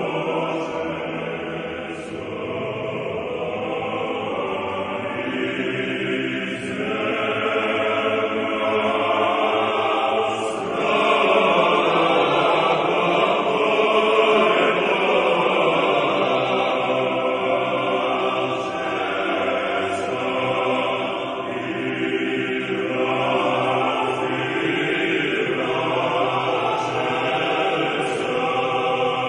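Choir singing a slow chant, the voices holding long notes.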